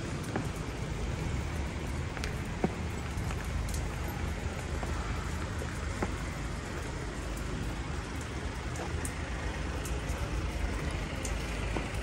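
City street ambience: a steady hum of road traffic, with a few short faint clicks scattered through it.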